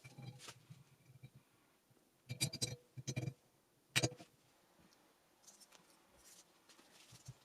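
Small metal engine parts clinking and knocking as they are handled and set down: a clatter of light metallic clicks a couple of seconds in, a second shorter one, then a single sharp ringing clink, with soft handling rustle between.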